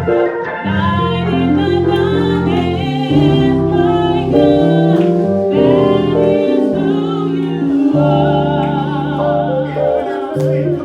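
Gospel singing with instrumental accompaniment: sung lines that waver in pitch over held bass notes.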